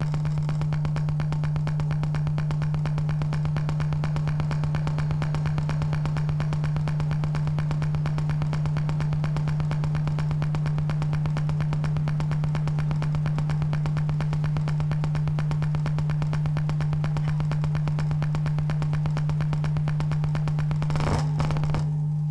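Heavily distorted electric-guitar drone: a loud, steady, buzzing hum held on one low note, starting abruptly. Near the end a brief noisy swell, after which the high buzz drops away and the low hum carries on.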